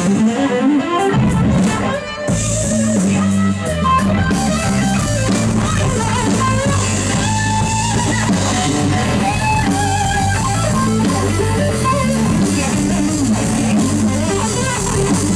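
Live electric blues band playing: electric guitar over electric bass and a drum kit, with the bass and drums dropping out briefly about two seconds in.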